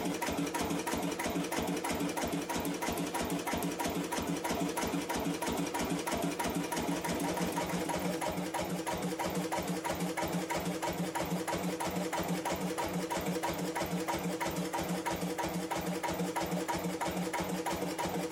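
1953 Lister CS 3.5 hp single-cylinder diesel stationary engine running steadily, with a fast, even mechanical clatter.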